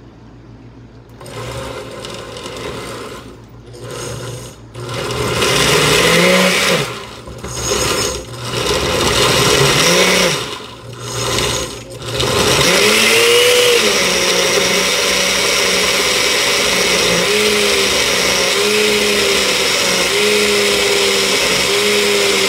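Countertop glass-jar blender pureeing a thick jerk marinade of scotch bonnet peppers, green onions, spices, soy sauce and brown sugar. It starts about a second in and runs in several short bursts with pauses between. From a little past halfway it runs without stopping, its motor pitch sagging and recovering over and over as the thick mix loads it.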